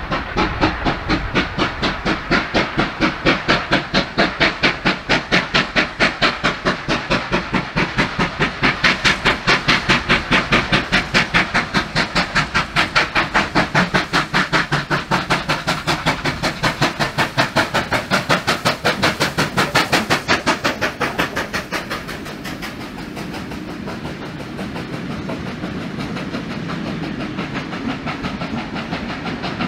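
NSW steam locomotive 3801 passing under steam, its exhaust beating fast and evenly with steam hiss. About twenty seconds in the beats fade and the steady rumble and clatter of the passing carriages takes over.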